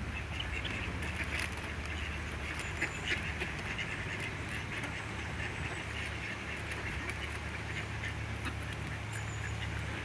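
Ducks quacking now and then over steady background noise.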